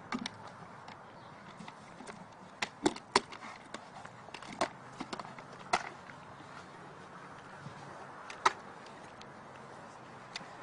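Plastic patio chair knocking and clattering as a brown bear handles it: scattered sharp knocks at irregular intervals, the loudest about eight seconds in.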